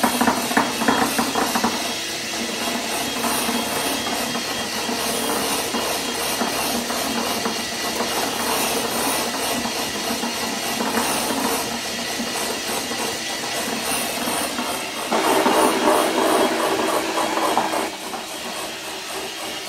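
Electric hand mixer running steadily, its beaters whipping egg whites into a stiff foam in a glass bowl. The whirring gets louder for about three seconds near the end.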